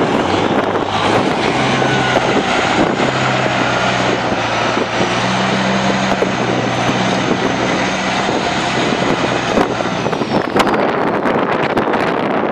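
Diesel engine of an articulated dump truck running steadily as it drives across the sand, with a faint high whine above the engine note. About ten seconds in the engine note falls away, leaving gusty crackling noise.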